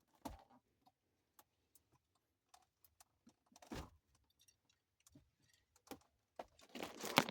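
Scattered light clicks and taps of small die-cast toy cars being handled and set into a display case, a few louder knocks among them.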